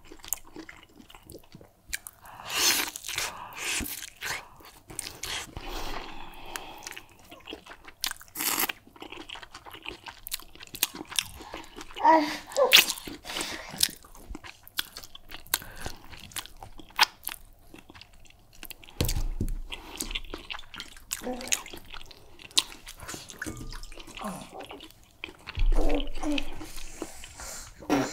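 Close-miked ASMR eating sounds: biting and chewing meat, with many irregular crunches and clicks and a couple of dull bumps past the middle.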